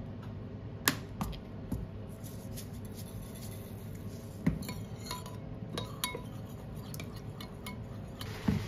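Dishes and metal cutlery clinking and knocking in a kitchen: about a dozen scattered sharp clinks at irregular intervals, a couple of them ringing briefly, over a low steady hum.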